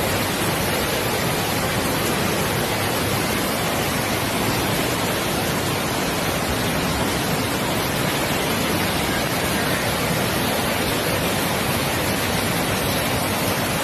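Floodwater rushing down a street in a heavy downpour, a steady, unbroken rush of water noise; the torrent is strong enough to carry off parked cars and motorbikes.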